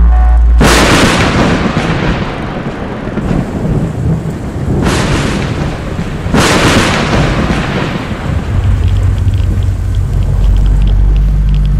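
Thunderstorm: a sudden crash of thunder about half a second in, then steady rain, with two more loud thunder crashes about five and six and a half seconds in. A low steady drone joins in the last few seconds.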